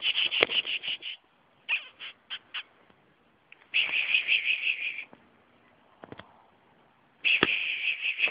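A bird's chattering call: fast runs of repeated harsh notes in four bursts, the second broken into a few separate notes.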